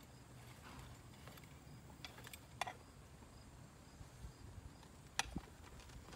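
Faint clinks and rustles of a western saddle's cinch and leather rigging being adjusted on a standing horse, with two sharper clicks, about two and a half and five seconds in, over a low steady rumble.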